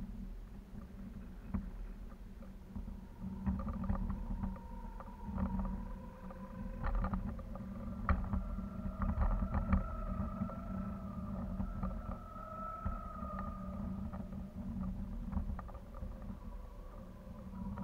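Wind buffeting the microphone of a kite-borne camera high in the air: a steady low rumble. From about three seconds in, a faint wavering tone comes and goes, with scattered light ticks.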